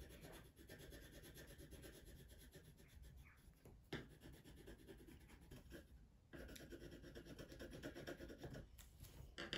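Faint scratching of a coloured pencil shading on paper, with one light tap about four seconds in and a brief pause about six seconds in.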